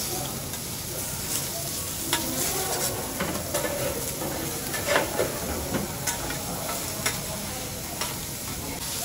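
Food sizzling on a teppanyaki griddle, with the sharp clicks of a metal spatula striking the hot plate several times, the loudest about halfway through.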